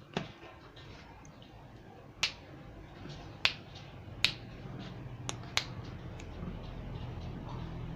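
Six sharp clicks or knocks at irregular intervals, with a low steady hum coming up near the end.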